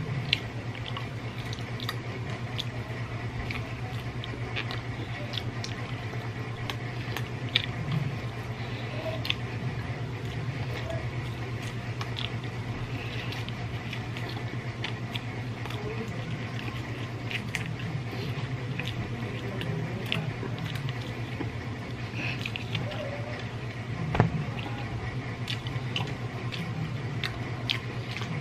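Close-up eating sounds of a person chewing roast chicken with their hands: wet mouth clicks, lip smacks and soft chewing, with one sharper click late on. A steady low hum runs underneath.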